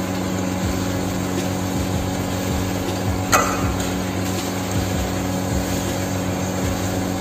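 A steady low mechanical hum with a few soft low thumps. About three seconds in comes one sharp metallic clink: the metal ladle being set down on the rim of the aluminium cooking pot.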